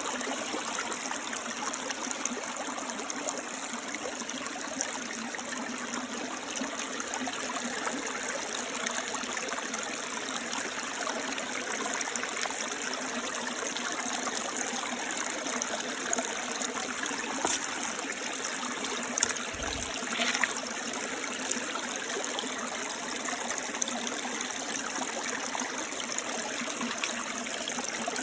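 Small woodland creek flowing and trickling over rocks, a steady rush of water. A few faint clicks and a soft knock about two-thirds of the way in.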